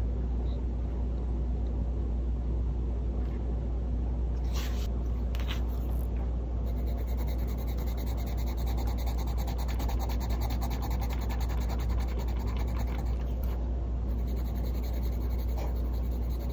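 Caran d'Ache Luminance coloured pencil scribbling back and forth on paper, a soft, fast scratching as a colour swatch is shaded in, starting about six seconds in. A steady low hum runs underneath and is the loudest part.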